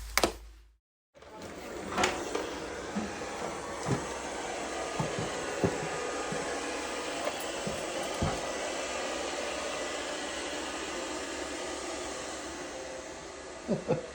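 A steady, even whooshing noise like a small appliance motor, with a few light knocks and clicks scattered through it.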